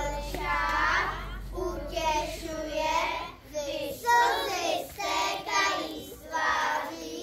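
A child's voice singing in short phrases, with brief pauses between them.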